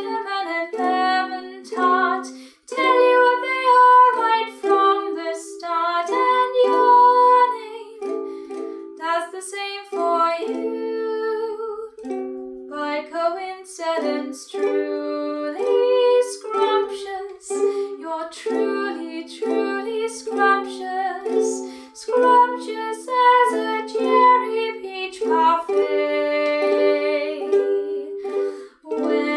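A woman singing in phrases to her own ukulele accompaniment.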